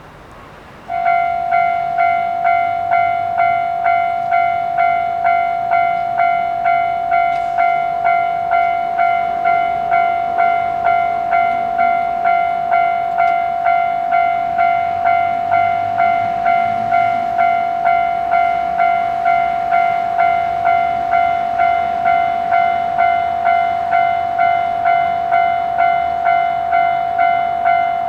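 Japanese railway level-crossing warning bell starting up about a second in, then ringing in an even, unchanging rhythm of about three strikes every two seconds: the signal that a train is approaching and the crossing is closing.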